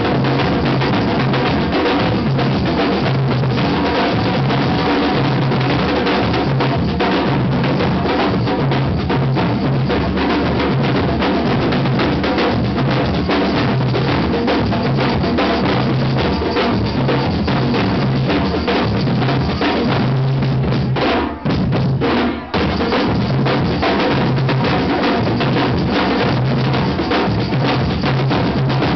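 Music with a drum kit keeping a steady beat over a repeating bass line; it cuts out briefly twice a little past twenty-one seconds in.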